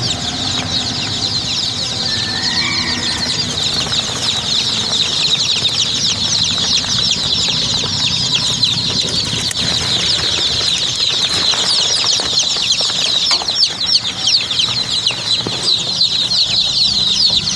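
Many Sonali chicks peeping all together, a dense, unbroken chorus of high, short, falling cheeps.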